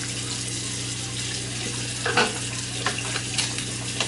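Water running steadily from a bathroom sink tap, with a few light knocks about two and three seconds in.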